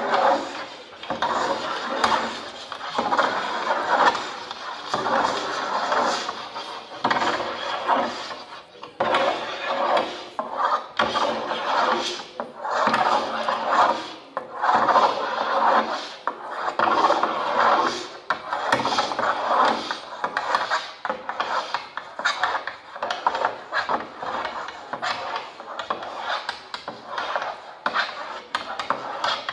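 Electronically amplified mark-making: drawing tools scraping and rubbing across a long sheet of paper, in repeated rasping strokes from several performers at once, drifting in and out of a shared rhythm.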